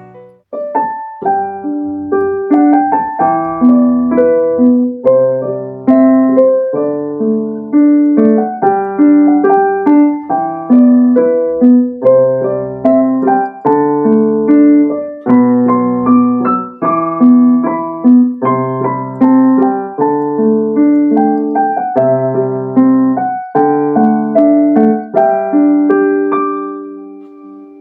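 Casio CT-S1 digital keyboard playing its piano tone: a slow piece of struck chords and melody notes over a bass line, the last chord dying away near the end.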